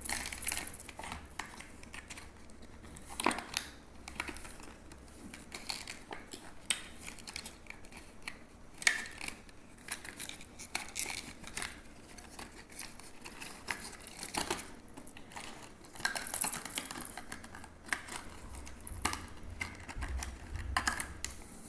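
Plastic lure packaging being handled and opened by hand to take out a soft rubber frog lure: irregular crinkles, rustles and small clicks.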